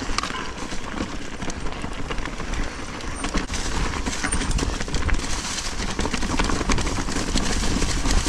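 Specialized Turbo Levo electric mountain bike riding fast over rough trail: a dense, continuous rattle of chain slap, clattering parts and tyres on dirt and roots, over a steady low rumble.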